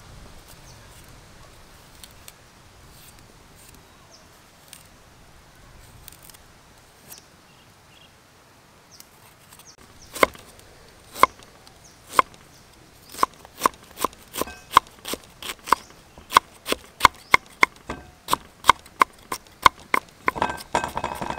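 Knife chopping peeled ginger on a thick wooden chopping board. At first there are only a few faint clicks while the ginger is peeled. About ten seconds in, sharp knocks of the blade on the board begin, single and spaced at first, then quickening to an even run of about three chops a second.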